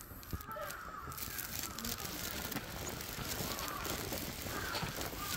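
A crow cawing several times over a steady outdoor hiss.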